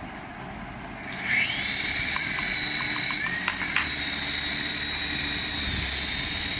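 Small electric motor of a toy remote-control model starting up about a second in and then whirring steadily with a high whine, the whine sliding up and down in pitch for a couple of seconds.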